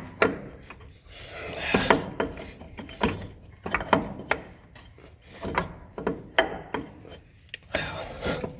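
Ratchet wrench working a bolt in short, irregular strokes, clicking each time the handle swings back.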